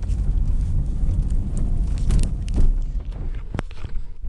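Steady low rumble of a moving car, heard from inside, with a few sharp clicks or knocks near the end.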